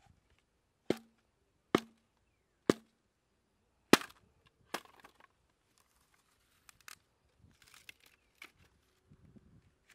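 A blade chopping into a bamboo stalk: five sharp strikes about a second apart, the first three each leaving a brief low ring. Softer cracks and crackles follow in the second half as the cut bamboo is split apart.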